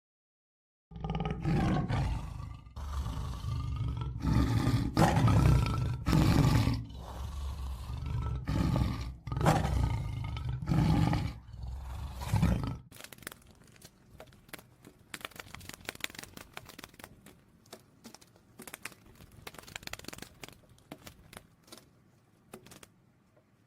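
A big cat roaring and growling: a run of deep, rough calls one after another for about twelve seconds. The calls then stop abruptly and a faint crackle of small clicks and crunches follows.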